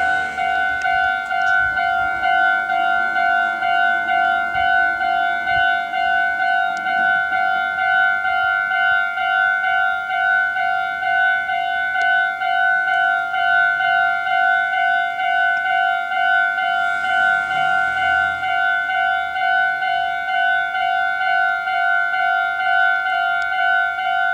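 Japanese railway level-crossing warning bell ringing: a steady, rapidly repeating two-tone ding that signals a train is approaching. A brief rush of noise passes under it about 17 seconds in.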